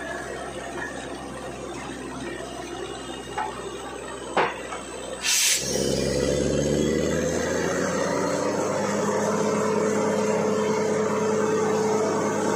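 An engine runs steadily. About five seconds in there is a short sharp burst of noise, after which an engine note rises in pitch over a few seconds and settles into a steady run.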